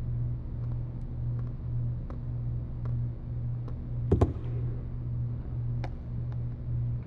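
A steady low hum pulsing about twice a second, with faint scattered clicks and one sharper knock about four seconds in: sharp metal tweezers picking at the pins of a phone's charging port.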